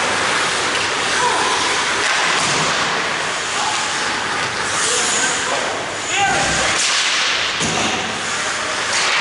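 Sounds of ice hockey play in an echoing rink: skates scraping the ice, with sharp cracks of sticks on the puck and a few short shouts from players.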